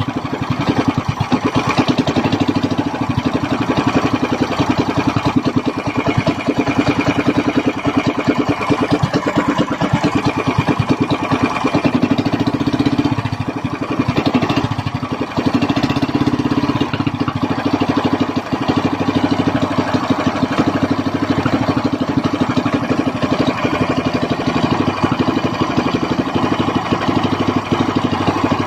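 Small single-cylinder ketinting longtail-boat engine running loudly and steadily, its exhaust beat easing briefly about halfway through before picking up again.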